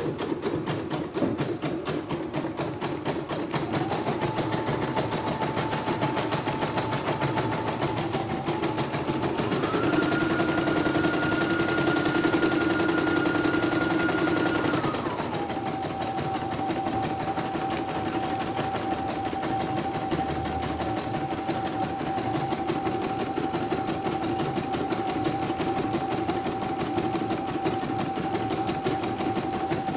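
CNY E900 computerized embroidery machine stitching a design at speed: a rapid, even needle clatter with a motor whine that rises about four seconds in, climbs higher around ten seconds, then drops back and holds steady. It is a test run after a worn presser foot and a holed bobbin case were replaced.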